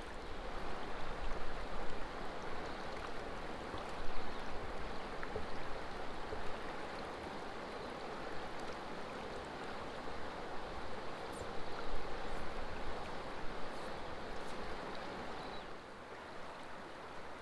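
Wild river water rushing steadily, with some low rumbling underneath.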